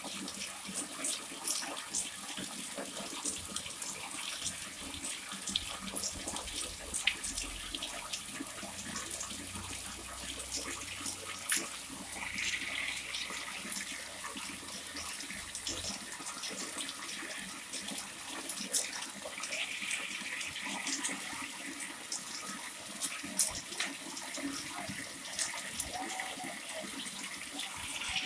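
Water pouring steadily from a pancuran, a water spout, and splashing, with scattered sharp drops and splashes.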